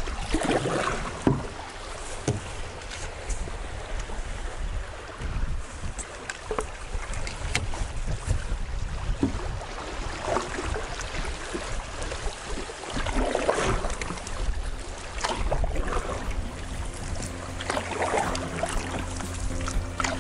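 Canoe paddle strokes and water swishing along the hull on a river, in uneven swooshes, over a low rumble of wind on the microphone.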